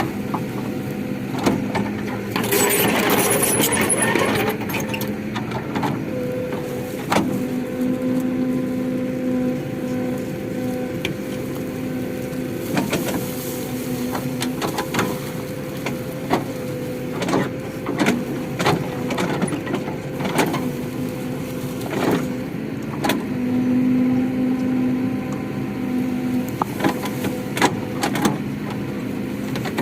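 Excavator's diesel engine running at a steady pitch, with frequent sharp clanks and knocks from the working machine. A short loud rushing noise comes about three seconds in.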